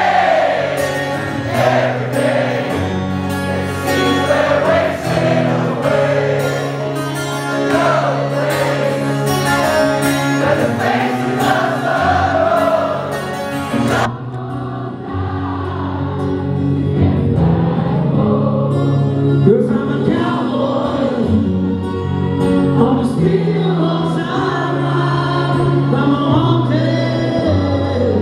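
Live rock band music heard from the audience through a phone's microphone: singing with a chorus of voices over guitars, bass and drums. About halfway through it cuts abruptly to another stretch of the performance that sounds duller, its high end gone.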